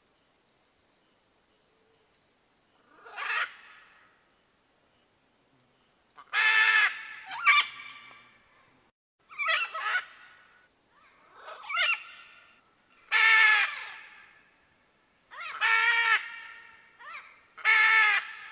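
Red macaw (arara-vermelha) giving a series of loud, harsh squawks, about eight in all. The first comes alone, and the rest follow every second or two.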